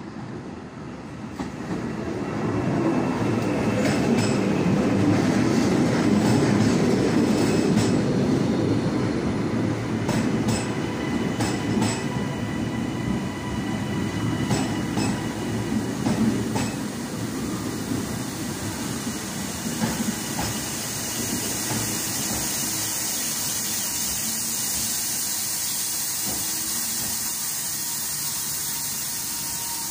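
TransPennine Express Class 397 electric multiple unit running into the platform and slowing to a stop: wheels rumbling, with repeated clicks over rail joints and a thin steady whine. Once it stands, the rumble gives way to a steady hiss.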